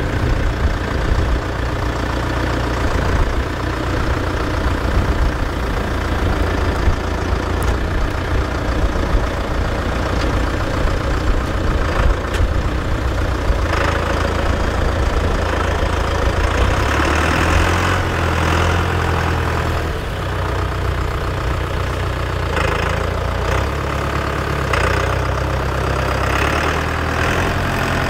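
Tractor diesel engine running with a steady low note that shifts in pitch a little past the middle, with a few sharp knocks and rattles along the way.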